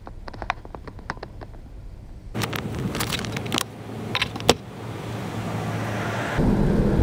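Clicks and rattles of a 5-inch FPV racing quadcopter being handled, then from about two seconds in a steady low motor hum that grows louder and steps up sharply near the end, as the quad's brushless motors idle and spin up.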